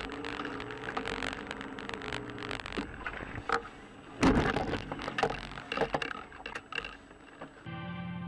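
Dashcam recording of a car driving: road and cabin noise with scattered clicks and rattles and a loud thump about four seconds in. Music takes over near the end.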